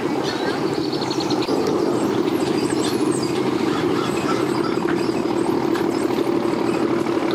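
An engine running steadily at idle, a low even drone with a fast flutter and no revving.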